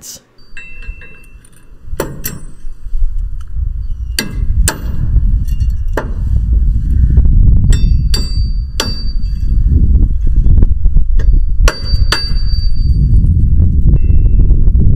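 Steel hitch pins and the solid steel ball assembly of an adjustable ball mount clinking and knocking against the drop shank as the pins are forced into tight holes thick with powder coat. About a dozen sharp metallic clanks, some ringing briefly, come over a loud, uneven low rumble that builds from a few seconds in.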